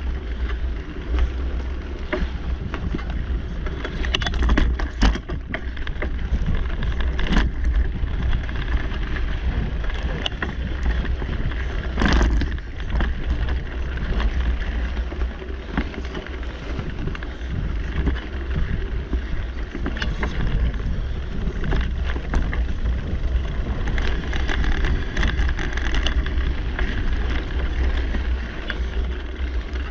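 Mountain bike ridden over a dirt singletrack: tyres rolling on the trail with frequent rattles and knocks over bumps, the strongest about twelve seconds in, and wind buffeting the microphone.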